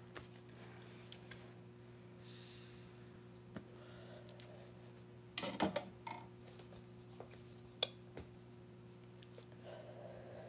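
Quiet room tone with a steady low hum, a few faint clicks, and a brief vocal sound about five and a half seconds in.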